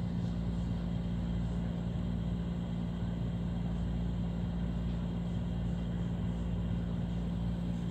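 A steady low mechanical hum with a constant low tone and rumble, unchanging throughout.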